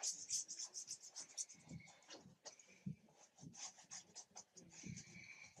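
Paintbrush dabbing and dragging acrylic paint across a canvas in many quick, irregular strokes, each a faint rasp, with a few soft knocks.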